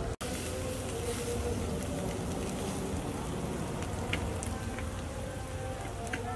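Fish grilling in a wire rack over a charcoal stove: a steady sizzling hiss with a few sharp crackles and pops from the fire.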